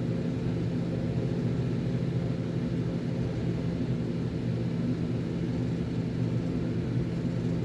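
Steady low mechanical drone with several held hum tones, unchanging throughout.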